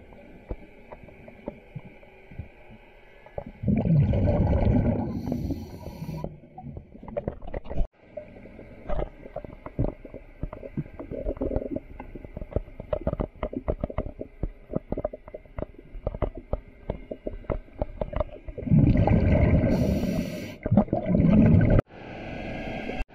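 Scuba regulator exhaust heard underwater: two long gushes of exhaled bubbles, the first about four seconds in and the second near the end, with bubbles crackling and clicking in between.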